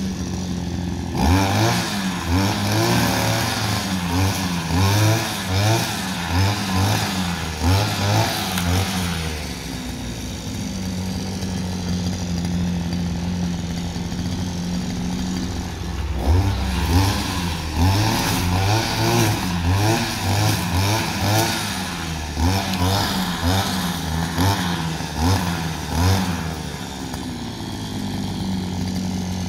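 Gasoline brush cutter engine revving in quick, repeated throttle bursts for several seconds, dropping to a steady idle about nine seconds in. It revs hard again from about sixteen seconds to twenty-six seconds, then settles back to idle near the end.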